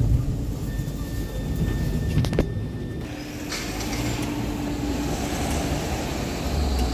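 Running noise of a Melbourne E2-class tram heard from inside the cabin, a low rumble with a steady high whine. About two and a half seconds in it changes abruptly to street sound: an E-class tram and a car passing a tram stop.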